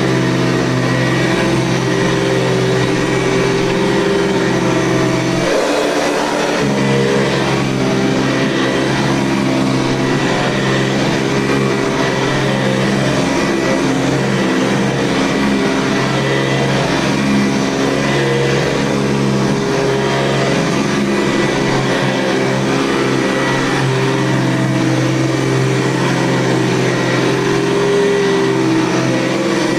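A 1972 Hoover Convertible upright vacuum cleaner running steadily with a loud, even motor whine. Its tone shifts briefly about six seconds in.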